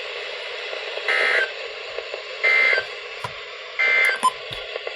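Three short bursts of NOAA Weather Radio SAME digital data tones, each about a third of a second long and just over a second apart, over steady radio receiver hiss. These are the end-of-message bursts that close the Required Weekly Test.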